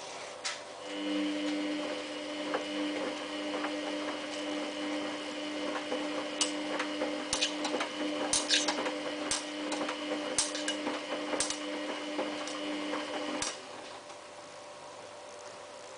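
Samsung WF8804RPA front-loading washing machine's motor humming steadily as it tumbles the drum during the prewash, with scattered clicks and taps from the load. The hum starts about a second in and stops about thirteen seconds in as the drum comes to rest.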